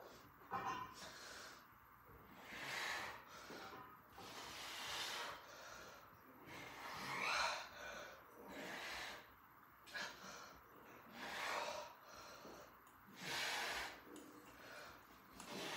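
A man breathing hard with exertion while lifting dumbbells: forceful exhalations through nose and mouth, about one every second or two, in time with his reps.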